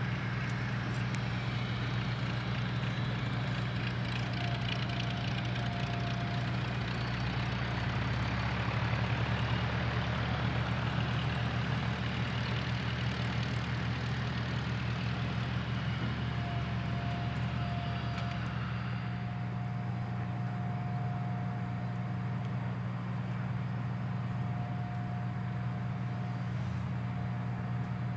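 Cessna 172R Skyhawk's four-cylinder Lycoming engine and propeller running steadily at low taxi power as the plane taxis. The sound grows duller about two-thirds of the way through as the plane moves away.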